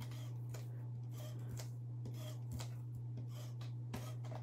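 Paper and cardstock being handled by hand on a hard countertop: faint rustling, sliding and a few light taps. A steady low hum sits underneath.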